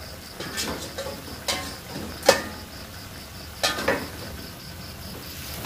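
Metal spatula scraping and clacking against a wok as instant noodles are stir-fried: about five strokes, the sharpest about two seconds in.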